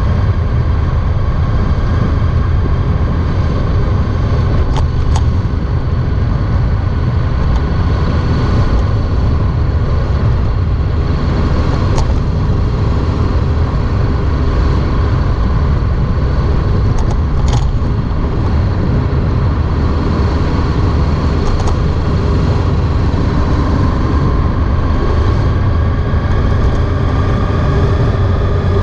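Honda ST1300 motorcycle's V4 engine running at a steady cruising speed under a heavy low rumble, with a steady whine that rises a little near the end as the bike speeds up.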